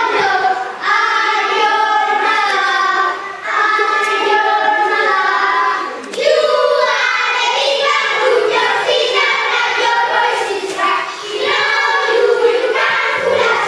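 A group of children singing a song together in chorus, with short pauses between phrases.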